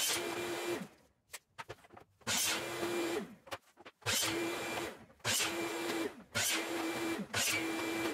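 DeWalt compound miter saw cutting PVC pipe in about six short bursts, each under a second, each with the motor's steady whine, starting and stopping suddenly.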